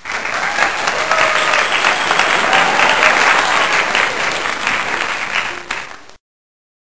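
A small group of people clapping and cheering, with voices mixed in; it starts abruptly and cuts off suddenly about six seconds in.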